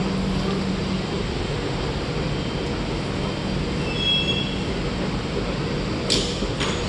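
C651 metro train running into the station and coming to a stop, a steady rumble with a low hum. A brief high squeal comes about four seconds in, and a short sharp hiss near the end as the train halts.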